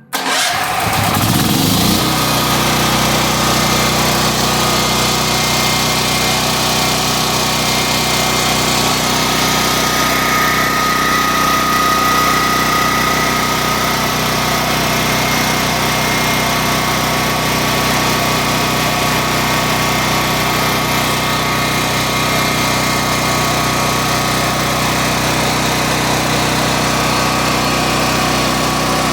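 Portable backup generator engine running on propane. It catches and spins up to speed within the first two seconds, then runs steadily at a constant speed.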